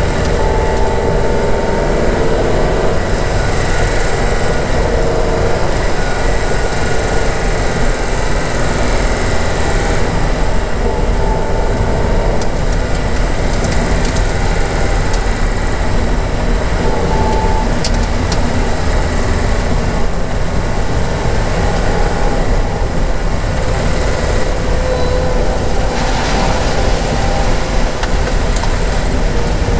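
Steady rumble of a vehicle driving slowly over a rough, muddy lane, as heard from inside the cabin: engine, tyres and body noise mixed into one constant drone.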